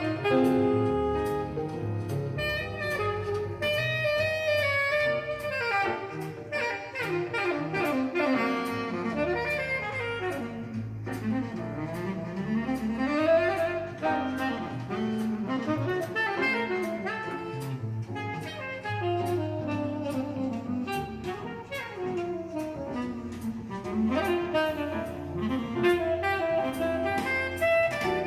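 Saxophone-led jazz over a steady cymbal beat, played back through a single-ended Miniwatt EL3N pentode valve amplifier and loudspeakers.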